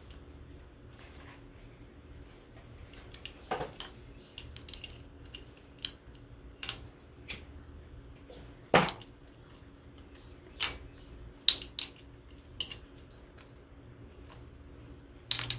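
Metal hand tools and engine parts clinking and clanking now and then: a dozen or so separate sharp clinks at uneven intervals, the loudest about nine seconds in.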